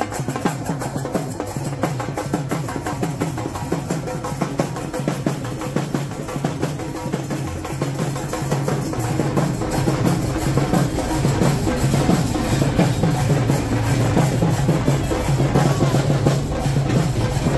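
Procession drums played fast and without a break, a dense rolling beat with a deep bottom, growing a little louder in the second half.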